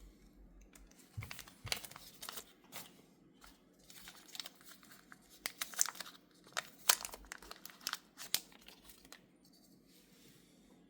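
Packaging being handled during an unboxing: an irregular run of crinkling and tearing rustles, starting about a second in and dying away near the end.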